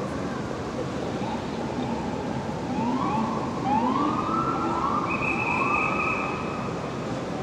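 Police car sirens giving a series of short rising whoops, several overlapping, with a steady higher tone about five seconds in, over a constant hum of city traffic.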